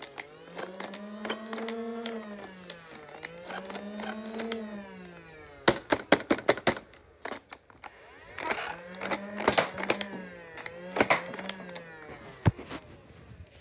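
Small electric motor of a clear-plastic Nerf blaster whirring, rising then falling in pitch four times, mixed with sharp plastic clicks and clatter.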